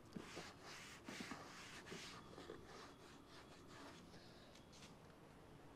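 Near silence, with a few faint rubbing and light handling noises in the first half.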